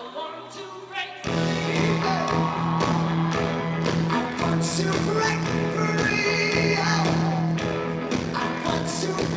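Live rock band music with singing; the full band comes in loudly about a second in, over a steady bass note.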